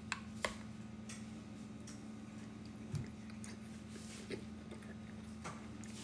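Eating sounds: a metal spoon clicking against a glass baking dish and soft chewing, as scattered short clicks, the sharpest within the first half-second. A steady low hum runs underneath.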